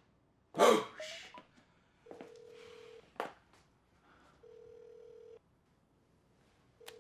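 Telephone ringback tone heard through a phone's earpiece: a steady low beep about a second long, repeating three times with gaps of about a second and a half, while the call waits to be answered. A brief loud noise comes about half a second in, before the first ring, and a sharp click falls just after the first ring.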